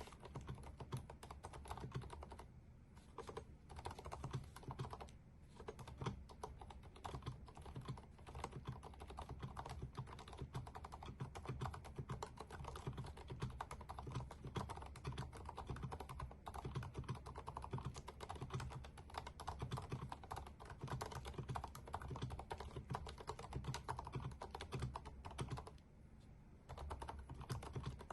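HHKB Studio mechanical keyboard being typed on steadily, a dense run of quick keystroke clicks. There are brief pauses about three and five seconds in and a longer one near the end.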